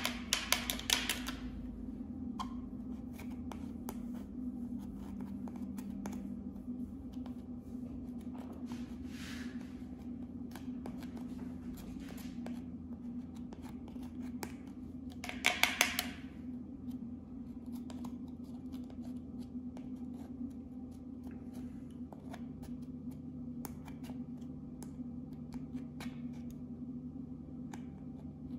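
Pressed eyeshadow being scraped and dug out of a plastic palette with a small stick: dry scratching with many small crumbling clicks. The scraping gets louder and faster right at the start and again in a short burst about halfway through, over a steady low hum.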